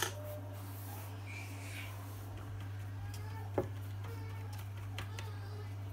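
Quiet room tone with a steady low hum, broken by a few faint light taps, the clearest about three and a half seconds in.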